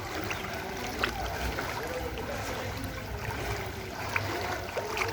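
Floodwater running steadily, with a couple of short sharp clicks.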